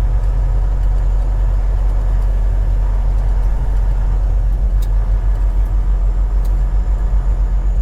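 Semi truck's diesel engine and road noise heard from inside the cab while driving: a steady low drone that pulses slightly in the second half.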